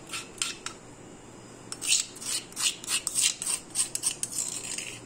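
Short rasping scrapes on a marble mortar as ground spice powder is worked out of it onto a plate: three at first, then, after a pause of about a second, a quick run of about a dozen strokes.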